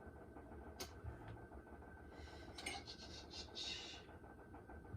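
Faint rustling and scraping of small objects being handled and shuffled, with a sharp click about a second in: someone rummaging through craft supplies looking for a roll of tape.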